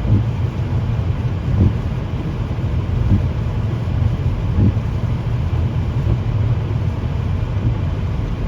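Car driving on a snow-covered road: a steady low rumble of engine and tyres, with a few soft bumps.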